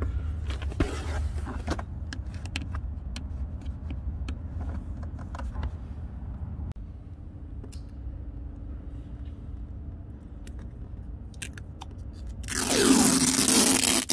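Protective plastic film being peeled off an LED door sill plate: faint scratching and crinkling as fingernails work at the edge, then a loud rip near the end as the film is pulled away.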